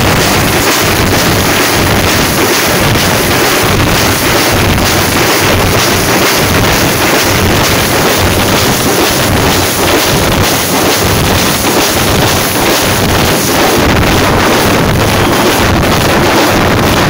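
A troupe of jamab frame drums beaten with sticks in a dense, fast, continuous rhythm, loud enough to overload the microphone.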